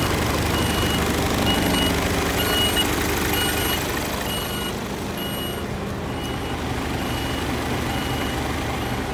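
Diesel engine of an Isuzu Giga heavy truck idling, with an electronic warning beeper sounding short high beeps about once a second; both grow a little fainter about halfway.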